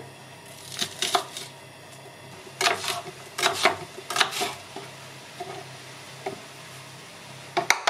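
Kitchen knife cutting an onion on a plastic cutting board: about ten sharp strokes at uneven intervals, several in quick pairs.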